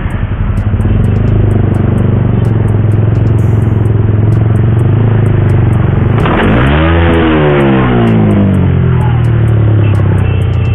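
Yamaha R15's single-cylinder engine running steadily in traffic. About six seconds in, a sudden rush of noise comes in and the engine revs up sharply, then winds slowly back down.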